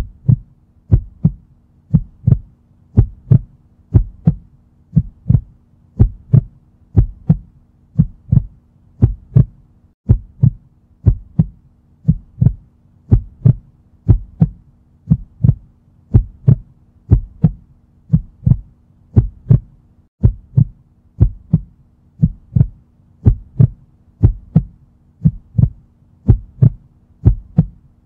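Heartbeat sound effect: a steady double thump (lub-dub) about once a second, deep and low, over a faint steady hum.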